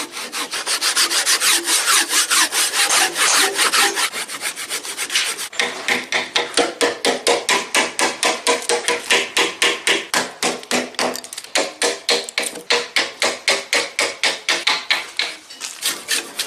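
A hand tool scraped back and forth across wood in quick, even strokes, about five a second.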